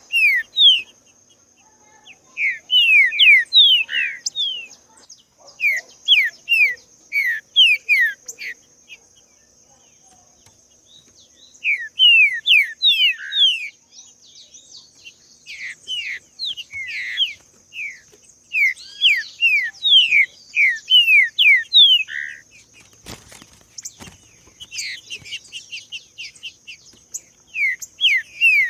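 Green-winged saltator (trinca-ferro) singing: repeated phrases of quick, falling whistled notes, separated by pauses of a second or two.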